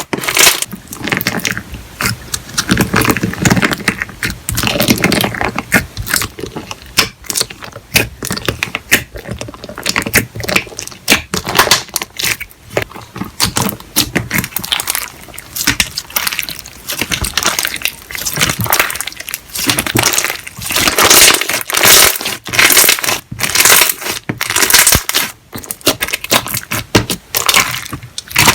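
Slime being squished and worked by hand, giving a dense, irregular stream of clicks, pops and crackles.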